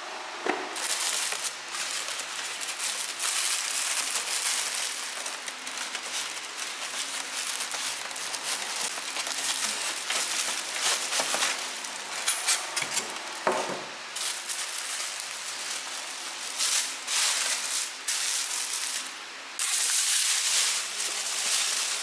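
Clear plastic bag crinkling and rustling in irregular bursts, with polystyrene foam packaging rubbing and a few light knocks, as an espresso machine is unwrapped.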